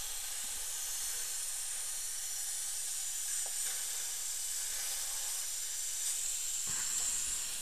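Steady hiss of a dental rinse: the air-water syringe spraying the prepared tooth under suction.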